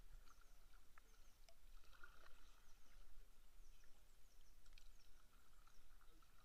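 Faint kayak paddling: paddle blades dipping and water lapping at the plastic hull, with scattered small splashes and clicks. Faint short high chirps repeat throughout.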